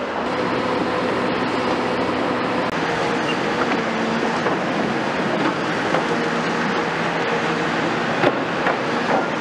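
Diesel engines of several Caterpillar demolition excavators, including a CAT 352F long-reach machine, running steadily, with scattered clanks and knocks of steel and rubble being pulled down; one sharper knock comes about eight seconds in.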